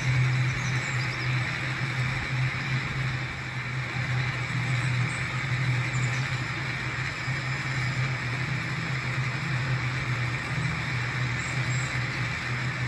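Water-powered cliff railway car running steadily on its rails: a continuous low hum and rumble with an even hiss over it.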